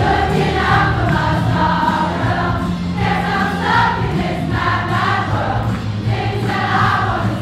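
Large choir singing a song together in harmony, over instrumental accompaniment.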